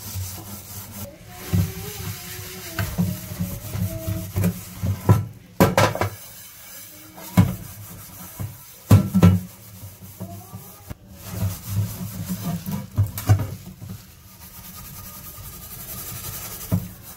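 A scouring pad rubbing over a burnt frying pan in short strokes, with several sharp knocks of the pan along the way. Music plays in the background.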